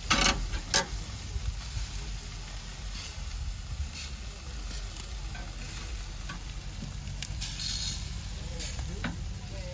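Oxtails sizzling on a hot grill while being turned, with two sharp metallic clacks about a second in.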